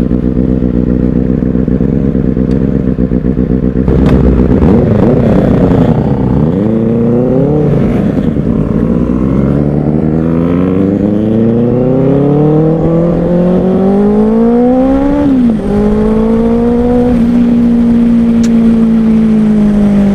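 Benelli 600i inline-four engine through an IXIL X55 dual slip-on exhaust. It runs steadily at low revs, then about four seconds in the revs rise and dip a few times. It climbs in pitch for about seven seconds, drops sharply about fifteen seconds in, and then holds a steady, slightly falling note.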